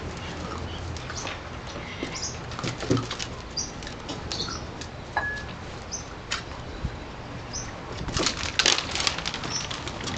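Puppies' claws scrabbling and clicking on a hard plastic sandbox lid as they play in it, with the lid rocking and knocking on the patio tiles; a loud flurry of clatter about eight seconds in.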